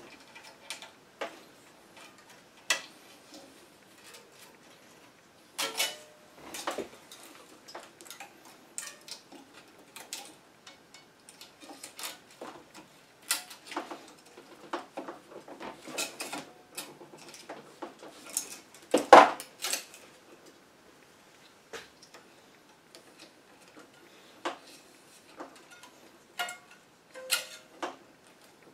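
Irregular clicks and clacks from stringing a tennis racquet on an electronic stringing machine: metal string clamps being set and released and the string handled at the tension head. One sharper, louder clack comes about two-thirds of the way in.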